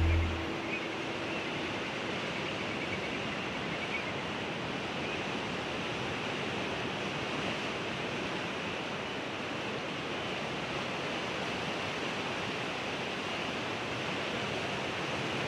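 Ocean surf: a steady, even rush of waves with no separate breakers standing out.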